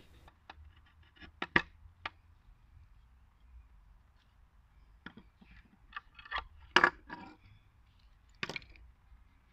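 A chisel pares the end of an oak peg in a few short cuts and clicks near the start. Then come scattered knocks and clinks of tool handling as the small metal G-clamp is worked and the wooden peg is set down on the wooden benchtop, with the loudest knocks in the second half.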